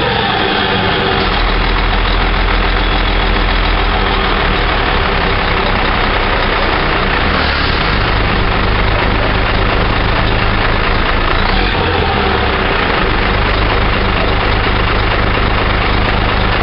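Scania 124 truck's diesel engine idling, its low running note shifting slightly a couple of times.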